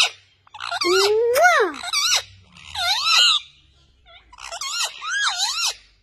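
Pet parrots chattering in high, wavering calls, three bouts of about a second each, with a kissing "mwah" near the start.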